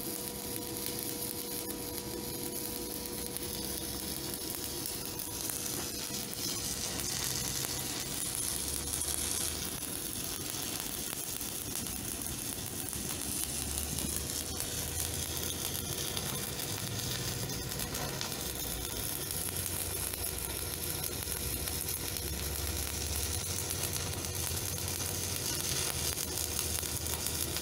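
Shielded metal arc (stick) welding: the electrode's arc burning with a steady hiss.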